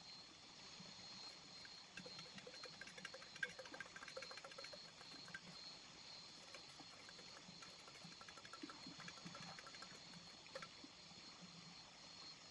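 Faint trickling and bubbling of a small river, with soft patters of water coming and going over a quiet steady hiss.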